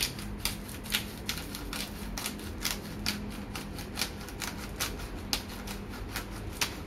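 Grinder bottle of Himalayan rock salt and black pepper being twisted, its grinding head crunching and clicking about three times a second.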